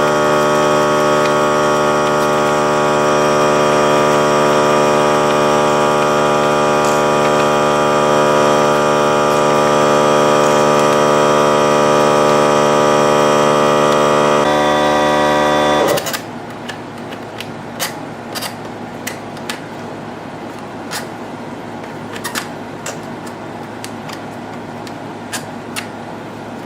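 Air compressor motor running with a steady, loud hum, then shutting off abruptly about sixteen seconds in; after it stops, only light clicks and taps of handling are heard.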